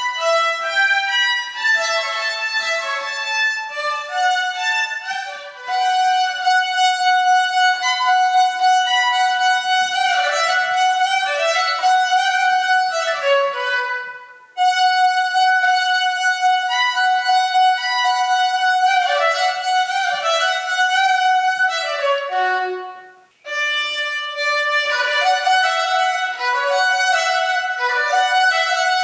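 Solo violin playing a flowing melody, a repeated held note set against quicker running notes, breaking off briefly twice: about halfway through and again about three quarters of the way in.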